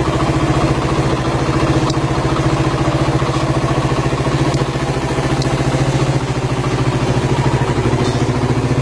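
Suzuki motorcycle engine idling steadily. The builders claim it runs on hydrogen gas from a water bubbler piped into the carburettor.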